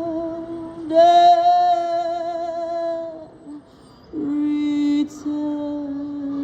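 A singer's voice holding long wordless notes with vibrato: one note swells about a second in and fades away, then after a brief pause a lower note is held steady.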